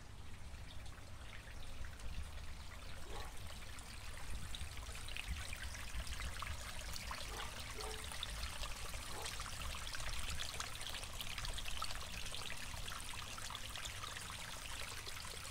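Small garden-pond waterfall: water trickling and splashing over a rock ledge into a koi pond, a steady patter that gets a little louder about four seconds in.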